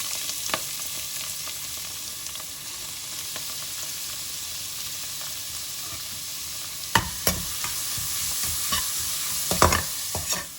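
Chopped onions and curry leaves sizzling in hot oil in a pan, a steady frying hiss. A utensil knocks sharply against the pan a couple of times about seven seconds in and again near the end as they are stirred.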